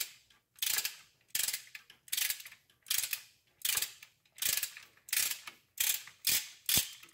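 Ratchet wrench clicking in short, evenly spaced back-strokes, about one every three-quarters of a second. It is running cylinder head bolts down toward 22 lb-ft in the tightening sequence.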